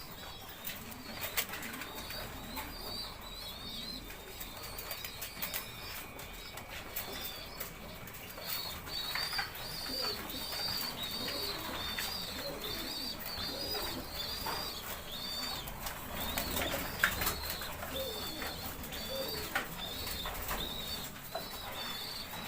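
Domestic pigeons in a loft cooing, with a high chirping repeated about twice a second from about a third of the way in, and scattered wing flaps and clicks.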